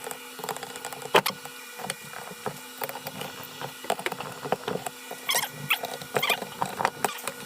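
Ratchet wrench clicking in short, irregular runs while tightening the cylinder nuts on a Honda CR500 two-stroke engine to 29 foot-pounds. A few short squeaks come in past the middle.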